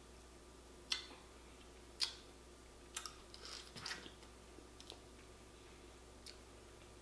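Close-up eating of boiled blue crab: scattered sharp clicks and cracks of shell and wet mouth sounds as the meat is picked out and chewed, the loudest about two seconds in, with a cluster around three to four seconds.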